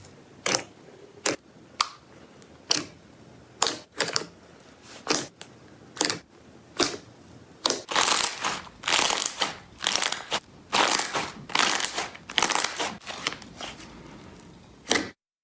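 Slime being pressed and squeezed by hand, giving a series of short, sharp sounds. They come about one a second at first, then faster and closer together from about eight seconds in, and stop abruptly near the end.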